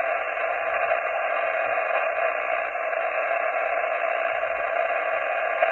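HF amateur radio transceiver's single-sideband receive audio: steady band static hiss, held within the narrow voice passband of the receiver filter, while listening for answers to a CQ call. It cuts off suddenly at the very end.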